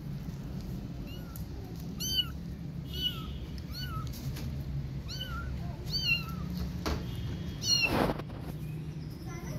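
Young kitten meowing repeatedly: short, high-pitched meows about one a second, each rising and falling in pitch. About eight seconds in, a brief burst of rushing noise is the loudest thing heard.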